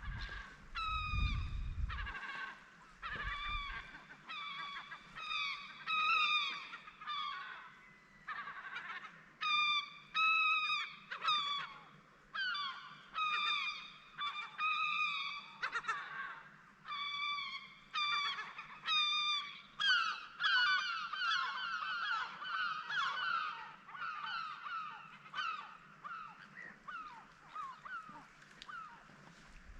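Gulls calling: a long series of repeated calls with short gaps between them. From about twenty seconds in, several birds call over one another.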